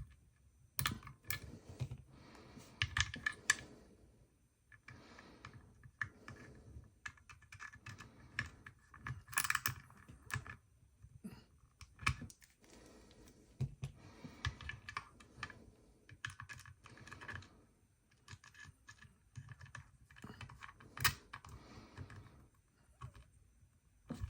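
Hands working on a guitar effects pedal kit: irregular small clicks, taps and rustles as parts are handled and fitted.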